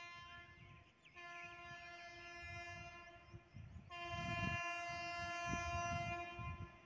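Horn of a distant approaching train, one steady note held in three long blasts with short breaks between them, the last blast the loudest.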